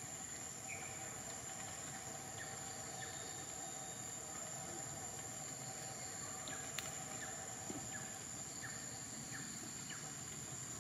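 Forest ambience: a steady high insect drone with faint, scattered short chirps, and a couple of faint clicks about two-thirds of the way in.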